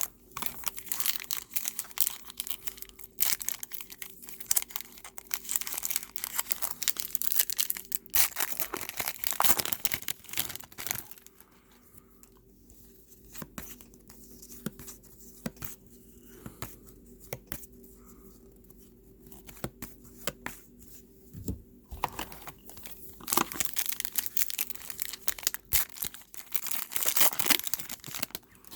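Foil trading-card pack wrappers crinkling and tearing open, with cards being handled and shuffled by hand. The rustling comes in busy stretches, with a quieter spell in the middle.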